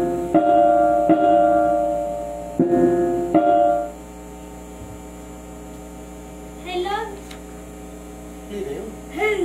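Piano-like electronic keyboard chords ring out for about four seconds and then stop, leaving a steady mains hum from the microphone's amplifier. A voice sounds briefly twice near the end.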